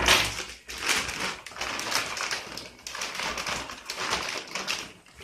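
Black plastic wrapper around a laser toner cartridge crinkling and rustling in irregular crackles as it is pulled open by hand.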